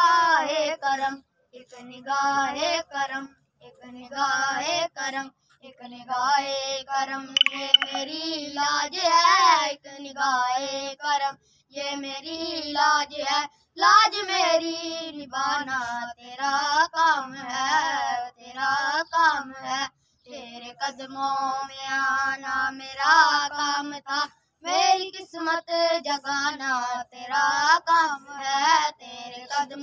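A single high voice singing an Urdu naat, a devotional song in praise of the Prophet Muhammad, with no instruments, in long melismatic phrases separated by short breaths.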